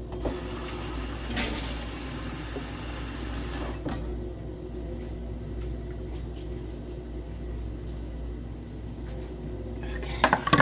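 Kitchen tap running water into a pot for about three and a half seconds, then shut off. A steady low hum continues after it, with a brief clatter near the end.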